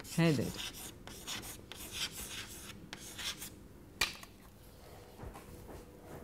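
Chalk writing on a chalkboard: a run of short scratching strokes, followed by a single sharp tap about four seconds in.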